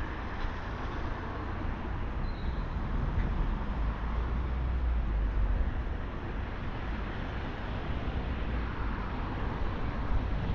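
Street traffic: cars and vans passing on the road, a steady wash of tyre and engine noise with a low rumble that swells around the middle.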